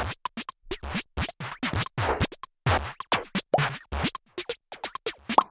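Background electronic music chopped into short stop-start bursts, with quick pitch sweeps like DJ record scratching.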